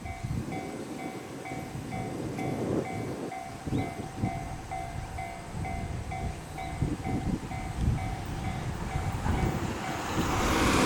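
Japanese railway level-crossing warning bell ringing its repeated two-tone electronic clang, about two strikes a second, signalling an approaching train. About ten seconds in, the rush of the train itself rises.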